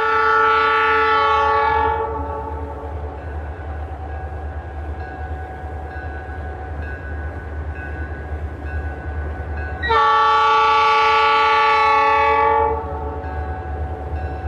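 A train horn sounds two long chord blasts, each about two to three seconds and roughly eight seconds apart, over the steady low rumble of a running train.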